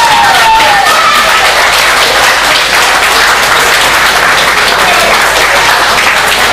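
Spectators applauding and cheering a goal: dense clapping with a voice shouting in the first second.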